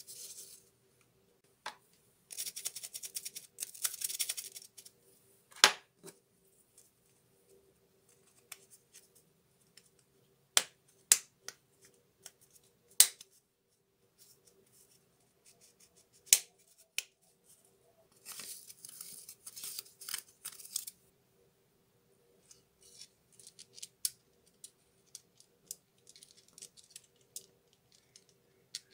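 Plastic and metal parts of a Bosch GWS 7-125 angle grinder handled and fitted together by hand: scattered sharp clicks and knocks. Two stretches of scraping, plastic rubbing on plastic, come a couple of seconds in and again past the middle.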